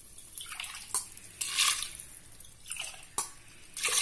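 Water poured from a tumbler into an aluminium pressure cooker pot onto soaked chana dal and sago, landing in several separate splashes.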